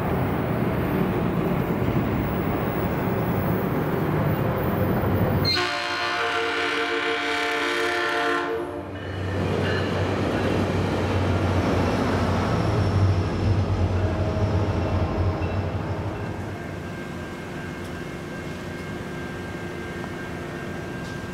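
SunRail commuter train rolling by with steady wheel-on-rail noise, then sounding its air horn, several notes at once held for about three seconds. After the horn a steady low engine hum runs under the rolling noise and eases off after about sixteen seconds.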